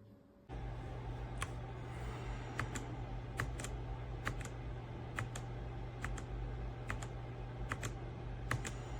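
Redragon K556 mechanical keyboard with brown switches, typed on in slow, unhurried keystrokes, each a sharp clack, often in quick pairs, over a steady low hum that starts about half a second in.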